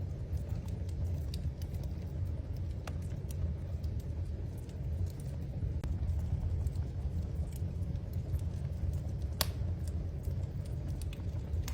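Wood fire crackling in a fireplace: scattered sharp pops, one louder than the rest about nine seconds in, over a low steady rumble.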